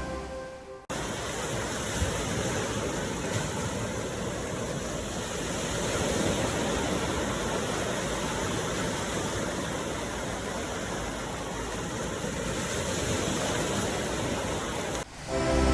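Steady, even rush of ocean surf, starting abruptly about a second in and cutting off suddenly near the end.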